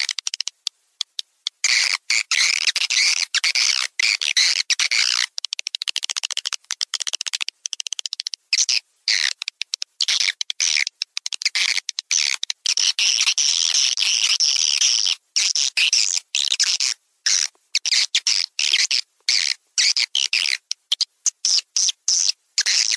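Swiftlet call sound, a lure played to draw edible-nest swiftlets: rapid high-pitched twittering chirps in quick bursts broken by sudden short gaps, with a longer unbroken run of twittering around the middle.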